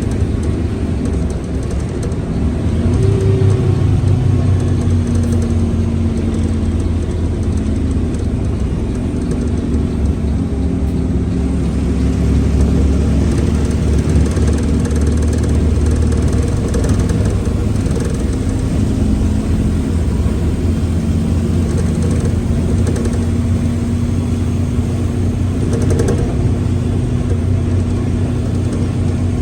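Mercedes-Benz OF-1721L BlueTec 5 bus's diesel engine and gearbox running steadily, a deep hum whose pitch drifts a little. The gearbox growls, a noise the owner points out as a sign of a noisy transmission.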